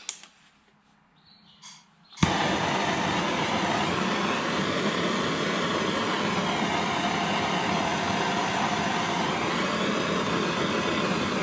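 Handheld gas blowtorch lit about two seconds in, starting suddenly with a click, then burning with a steady hiss of the flame as it heats heat-shrink sleeving.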